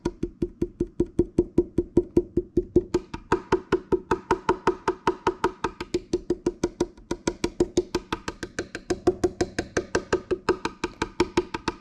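Fingertip tapping rapidly on the top of a Harley Benton HB-35 Plus semi-hollow guitar body, about six short hollow knocks a second. The knock's tone shifts brighter and duller several times as the tapping moves across the top: the difference marks where the top has not glued down to the centre block and where it has.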